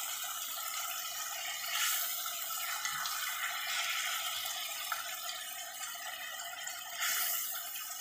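Hilsa steaks and onion masala sizzling steadily in hot oil in a kadai, with a metal spatula stirring and scraping the pan; it sounds louder briefly twice, about two seconds in and near the end. The masala has fried down and the fish are starting to burn.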